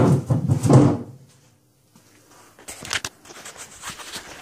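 Sharp clicks and knocks a little under three seconds in, then lighter rattling: the top cover of a Johnson 115 outboard motor being unlatched and lifted off.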